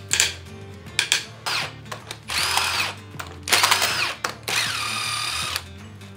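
Impact wrench undoing the cylinder head bolts on a Nissan TD42 diesel, in three short whirring bursts, the last one longest, with its whine dropping in pitch. A few metallic clicks and clinks come before the first burst.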